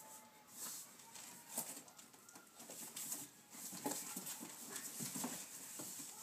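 Cardboard box rustling, scraping and knocking irregularly as a toddler crawls into it and rolls it about, the handling getting busier about halfway through.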